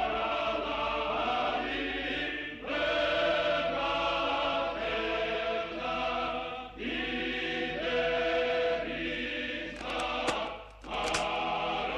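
Film-score choir singing sustained chords in long phrases, breaking off briefly about three, seven and eleven seconds in.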